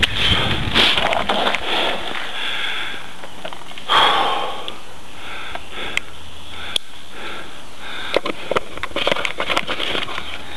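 Mountain bike descending a loose gravel forest track: a steady crunching hiss of tyres on gravel, scattered with sharp clicks and rattles from stones and the bike, and a louder burst about four seconds in.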